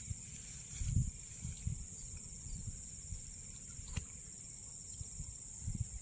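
Steady high-pitched insect chorus, with low dull thumps about a second in and again near the end, and a single sharp click about four seconds in.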